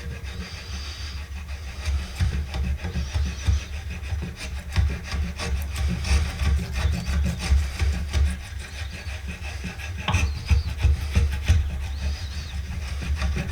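A Stanley spokeshave blade shaving down a wooden screwdriver handle in repeated, irregular scraping strokes, a little heavier about ten seconds in.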